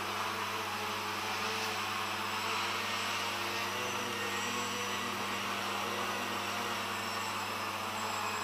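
Leadfeather SkyCart RC model's motor and propeller whirring steadily in flight, over a constant low hum.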